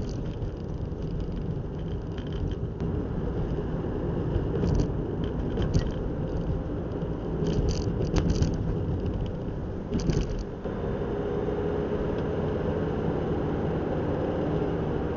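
Car driving on a country road, heard from inside the cabin: steady engine and tyre rumble, with a few short rattles or clicks in the middle, and the engine note shifting slightly about ten seconds in.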